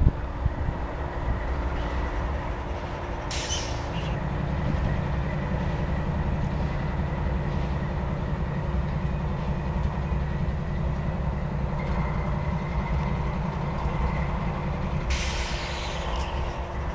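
Diesel locomotive running in a rail yard, its engine note stepping up about four seconds in and easing off near the end. Short bursts of air hiss from the train's air brakes come once about three seconds in and again for about two seconds near the end.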